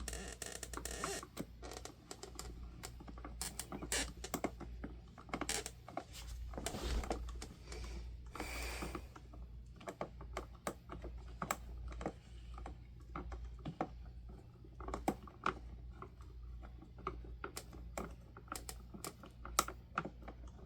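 Irregular light clicks and taps of hard plastic parts being handled, with two short scraping rubs near the middle: hands working the plastic guard of a Honeywell HT-900 fan.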